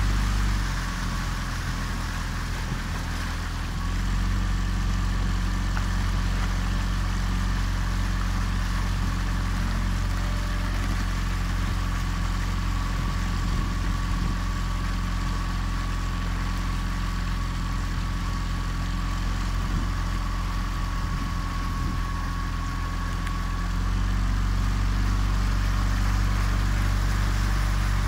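An engine running steadily with a low drone, its note shifting about 4 seconds in and again near the end. A thin, steady high whine sits above it and stops shortly before the second shift.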